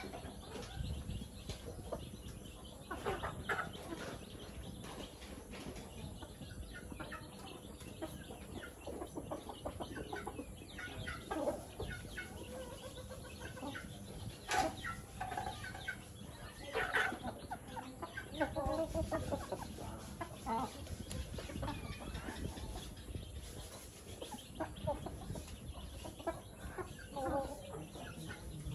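A flock of chickens clucking now and then as they feed, with short calls scattered irregularly through it.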